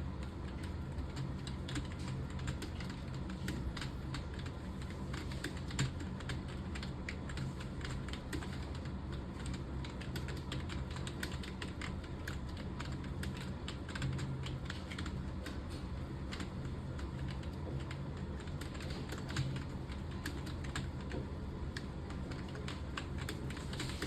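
Computer keyboard typed fast and continuously, a dense run of key clicks during typing-test practice, over a steady low hum.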